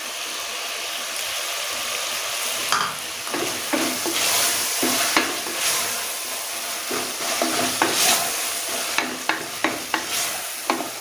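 Tomato-onion masala with fresh mint and coriander leaves sizzling in an aluminium pressure cooker, with a spatula stirring it, scraping and knocking against the pan. The knocks come often from about three seconds in.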